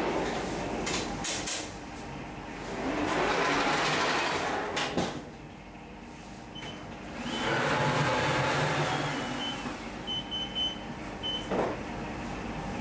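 Deck-oven loader being run into the oven and drawn back out along its metal rails: rumbling and sliding in two long swells, with a few sharp metal knocks and some faint short high tones.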